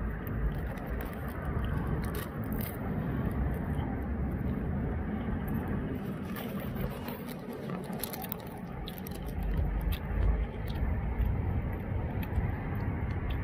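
Steady low rumble of street traffic, with scattered faint clicks and scrapes.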